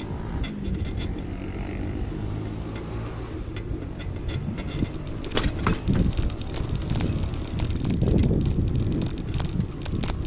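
Wind rumbling over the microphone of a moving two-wheeler, with scattered clicks and rattles from the ride over the road. The clicks cluster about halfway through, and the rumble swells for a moment near the end.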